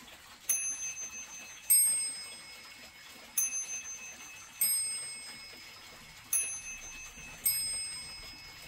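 A 1960s Junghans mantel clock striking on two gongs in three ding-dong pairs, a higher note followed by a lower one. Each strike rings on and fades before the next.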